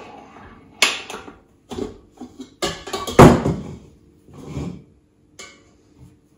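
Metal clunks and knocks of a Kenwood Cooking Chef stand mixer as its tilting head is raised and the stainless-steel bowl is unlocked and lifted off the base: about seven separate knocks, the loudest a little after three seconds in, over a faint steady hum.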